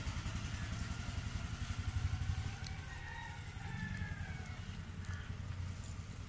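Passing road traffic: a motor vehicle's low engine rumble that swells about two seconds in and then slowly fades.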